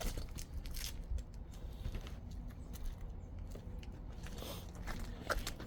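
Faint scattered scrapes and taps of asphalt roofing shingles being handled, over a low steady rumble.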